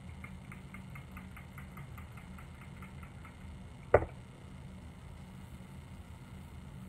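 Faint rubbing and scratching ticks from hair being worked by hand, a few a second for the first three seconds or so, over a steady low hum, with a single sharp knock about four seconds in.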